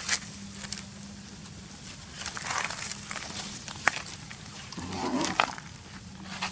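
Short animal sounds and sharp clicks, with a couple of brief louder bursts, over a steady low hum.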